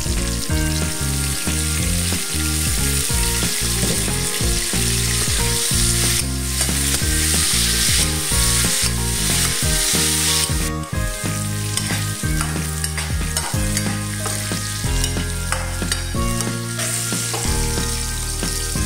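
Carrots and green beans sizzling in hot oil in a wok, stirred with a metal spatula that scrapes and taps the pan. The sizzle is strongest between about six and ten seconds in.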